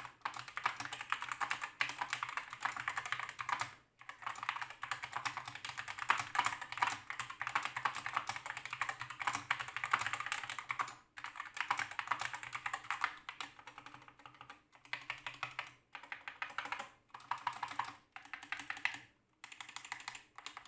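Fast typing on a mechanical keyboard with linear Gateron switches, a dense run of key clicks and bottom-outs broken by brief pauses, the keystrokes coming in shorter, sparser runs near the end.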